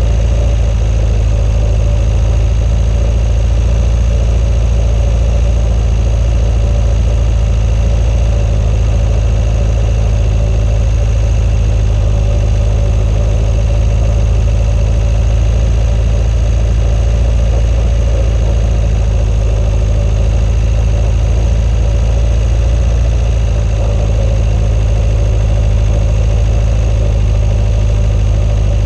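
Swamp buggy's engine running at a steady pace with a low rumble, heard loud and close through a camera mounted on the vehicle's front deck.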